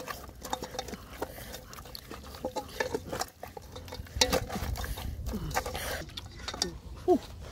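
Hands handling a raw whole chicken in a metal cooking pot lined with taro slices: irregular wet rubbing, light clicks and small knocks against the pot.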